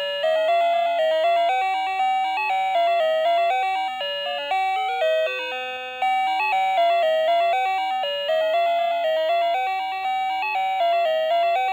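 Tinny electronic melody from a toy's sound chip: a simple tune of chiming notes, each struck and dying away, about two a second.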